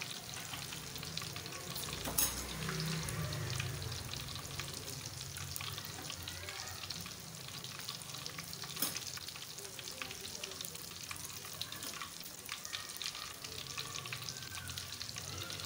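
Besan-battered eggplant slices (baingan pakoras) deep-frying in hot ghee in a wok: a steady sizzle with fine crackling. Two sharper clicks stand out, one about two seconds in and another near nine seconds.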